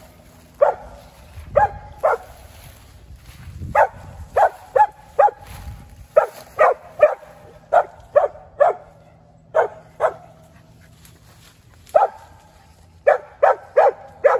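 Squirrel dog barking at a treed squirrel: about twenty sharp barks in bursts of two to five with short pauses between, the treeing bark that tells the hunters the squirrel is there.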